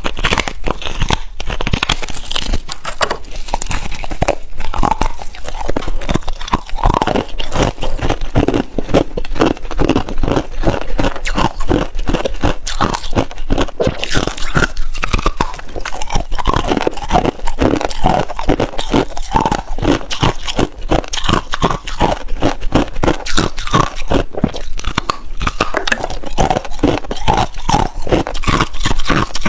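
Chunks of freezer frost being bitten and chewed close to the microphone: a steady run of many icy crunches a second.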